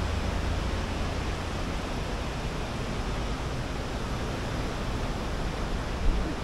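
Steady rushing noise with a deep rumble underneath that eases after the first half second; a brief low thump near the end.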